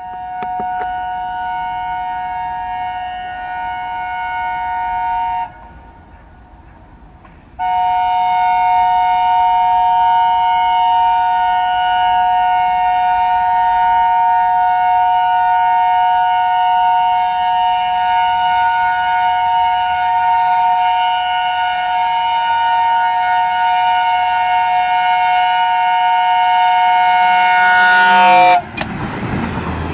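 Locomotive's two-tone horn sounded in long blasts as the train approaches: one of about five seconds, a short break, then one held for about twenty seconds. The horn cuts off abruptly near the end as the train rushes past with a loud rush of wheels and air.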